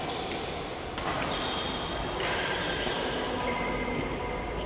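Badminton rackets striking shuttlecocks in a large sports hall, one sharp hit about a second in and fainter hits from other courts, over the hall's general noise.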